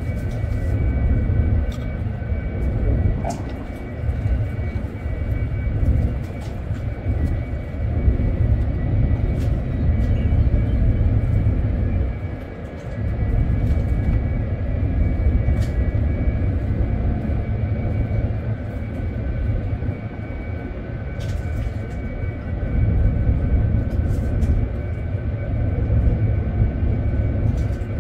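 Steady background rumble on a ship's deck, rising and falling in loudness, with a faint steady whine above it and a few light clicks.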